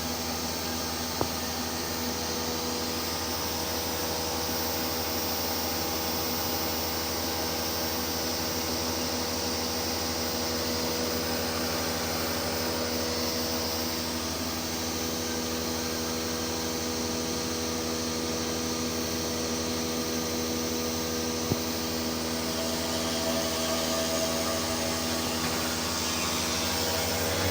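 CNC machine running steadily under test: a constant mechanical hum with several steady tones over a hiss, and two short clicks, one early and one about two-thirds through.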